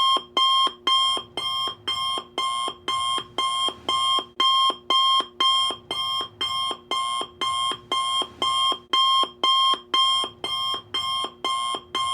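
Alarm clock sound ringing loudly in an even, rapid pattern of about four rings a second, signalling that the timer has reached zero.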